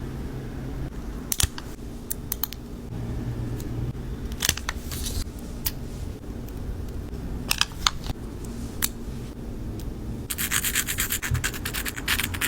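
Rubbing and scratching handling noise with scattered sharp clicks over a low rumble; about ten seconds in, a fast, continuous run of clicks starts.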